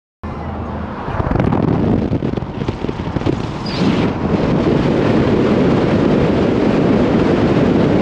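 Strong wind buffeting the microphone: a loud, gusting rumble that starts suddenly.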